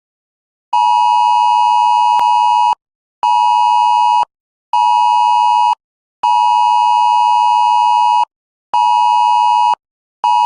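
Wireless Emergency Alert attention signal: a loud steady two-tone beep (853 and 960 Hz together) in its cadence of one long beep and two short ones, given twice.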